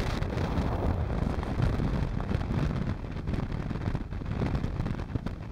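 Wind buffeting the microphone on a moving motorcycle: a steady low, rough rush of air that eases slightly about halfway through.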